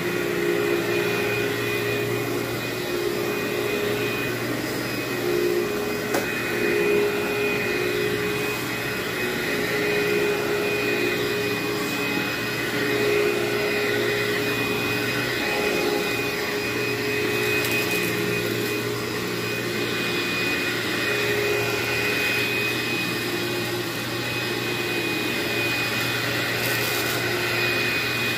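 Upright vacuum cleaner running steadily, a constant motor whine and hum, as it is pushed back and forth over carpet.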